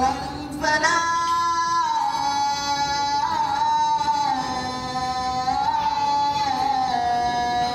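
A live singer's slow, doleful song through a microphone: long held notes that glide and waver between pitches.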